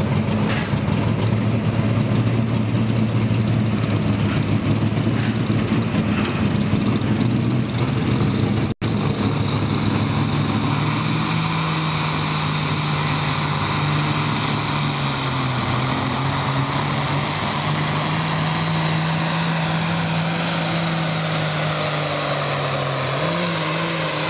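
Ford diesel pulling tractor running hard under load as it drags a weight sled, its engine holding a steady drone that dips briefly partway through and climbs near the end.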